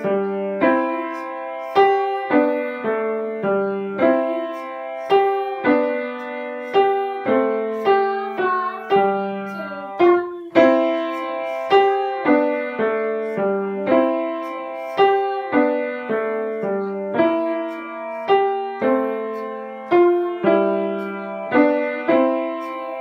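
Seiler grand piano played by a five-year-old: a simple piece in struck notes and chords, about two a second, with a bass part under the tune, each note ringing and fading.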